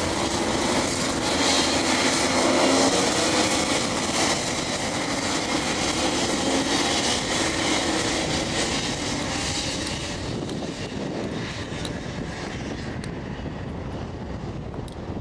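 A pack of Rotax Max 125cc two-stroke racing karts on the warm-up lap, many engines buzzing together. It is loudest a few seconds in and fades as the pack moves away.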